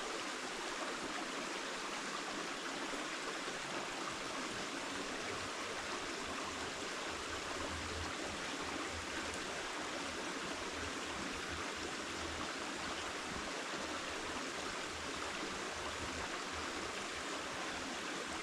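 Creek water running steadily, an even rushing. A faint low rumble comes and goes from about five seconds in.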